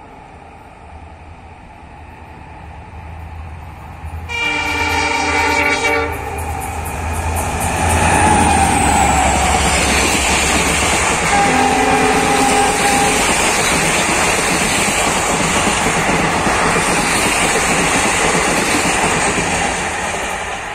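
Indian Railways express train approaching and passing at speed: the locomotive horn sounds in one blast of nearly two seconds a few seconds in, then the loud, steady rumble and clatter of the locomotive and coaches rushing by, easing slightly near the end.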